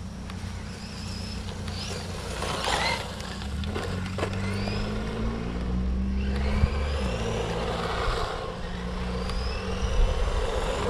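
Laegendary Tornado 1/12-scale RC truck running, its 550 brushed motor whining and rising in pitch several times as it speeds up, over a steady low hum.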